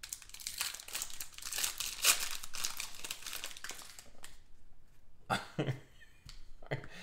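Foil wrapper of a 2017 Preferred football card pack crinkling and tearing as it is ripped open, dense and crackly for the first few seconds. After that come a few quieter rustles as the cards are handled.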